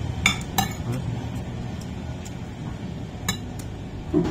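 Metal spoon clinking against a plate while eating: two sharp clinks close together near the start, a few fainter taps, and another sharp clink about three seconds in, over a low steady hum.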